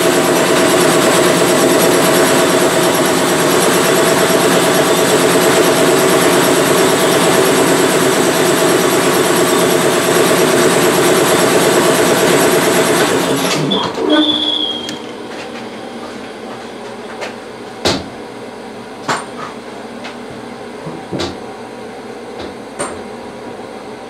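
Vapor blasting cabinet running with a loud steady hum and hiss that cuts off abruptly about 14 seconds in. After that come a few light, separate knocks as parts are handled inside the cabinet.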